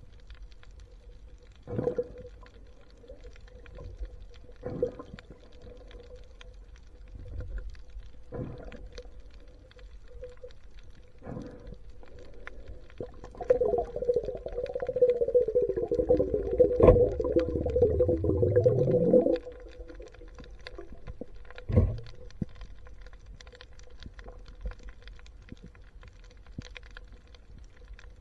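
Underwater sound picked up by a camera in a waterproof housing: a faint steady hum with a dull knock every few seconds. From about halfway, a louder warbling rush with shifting pitch runs for about six seconds, then cuts off suddenly.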